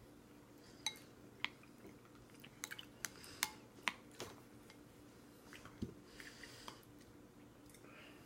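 Plastic spoons clicking and scraping against a plastic baby bowl in irregular sharp clicks, thickest around the middle, with soft chewing and mouth sounds from a toddler eating.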